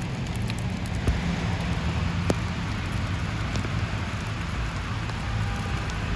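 Sleet and hard snow pellets ticking against the car's body and windshield, heard inside the cabin over a steady low road and engine rumble.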